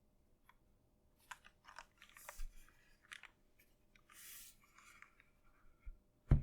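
Irregular, unhurried keystrokes on a Dalco 959 Mini mechanical keyboard with an aluminium plate and lubed Cherry MX Hyperglide Black linear switches: scattered clacks with a couple of brief rustles, and one much heavier low thock about six seconds in.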